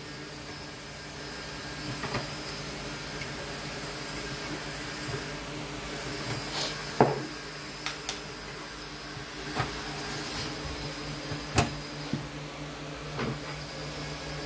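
Scattered knocks and clinks of metal parts and screws being handled while a hi-fi unit's metal chassis is dismantled, the sharpest about seven and eleven and a half seconds in, over a steady background hum.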